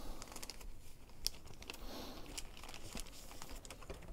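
Faint crinkling and rustling of clear plastic kit packaging being handled, with scattered light ticks.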